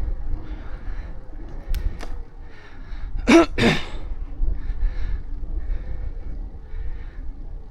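A cyclist's sharp two-part cough-like burst of breath about three seconds in, over steady wind rumble on the microphone from riding.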